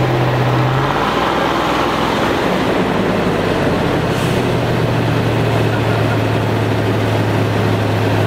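ZIL-131 army truck's V8 petrol engine running as the truck creeps through mud; its steady low note drops a little about a second in, then holds.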